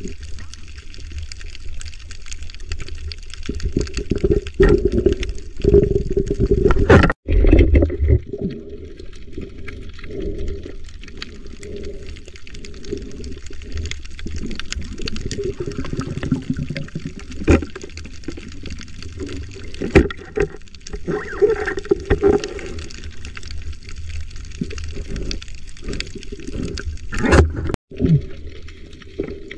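Muffled underwater water noise heard through a submerged camera, with scattered small clicks and knocks. The sound cuts out briefly twice: about seven seconds in and near the end.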